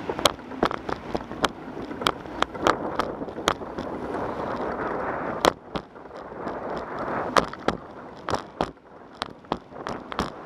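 Bicycle rolling along a concrete path, with steady rolling and wind noise on the microphone and frequent irregular sharp clicks and rattles as the bike jolts.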